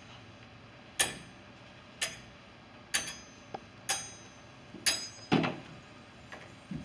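A hammer striking metal about once a second, each blow ringing briefly: a blacksmith hammering out a breastplate. A louder cluster of knocks comes a little after five seconds.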